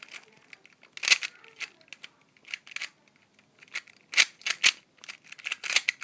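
Plastic Rubik's Cube being turned by hand: quick, irregular clicks and clacks of the layers turning. There are a few louder clacks about a second in and again in the last two seconds.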